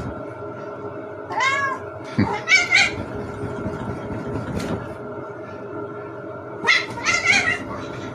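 Kitten meowing in high, arching calls, one call at about a second and a half in, a pair just before three seconds and a cluster near the end, over a steady background hum.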